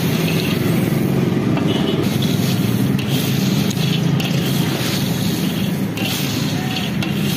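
In-shell peanuts being stirred through hot roasting sand in a large wok with a perforated metal ladle: a continuous scraping, rattling rush of shells and grit against the pan, with brighter scrapes about once a second. A steady low rumble runs underneath.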